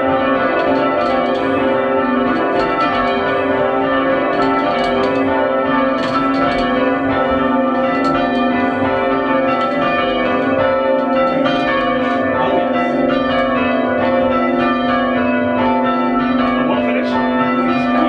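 A light ring of five church bells, tenor of about 8 cwt in A, being change-rung: the bells strike in steady rapid succession, their tones ringing on over one another. Heard from the ringing chamber below the bells.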